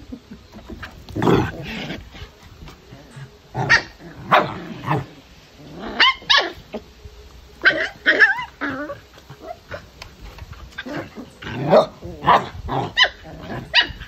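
A tan puppy and a small white-and-brown dog play-fighting, with a string of short, high-pitched barks and yips coming in irregular clusters.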